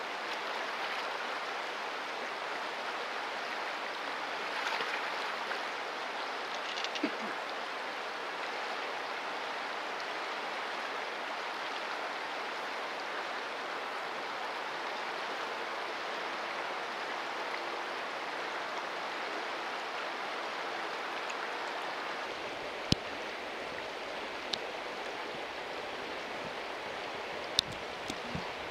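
River water rushing steadily over rocks, with a few sharp clicks near the end.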